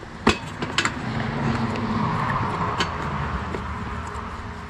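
A few sharp clicks and knocks as a TTR250's carburetor is worked free of its soft rubber intake boots, over a low hum that swells about halfway through and then eases off.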